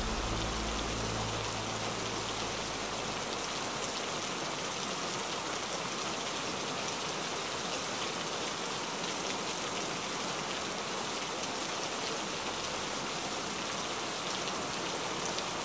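Steady heavy rain, an even hiss. Low sustained tones fade away in the first second or two.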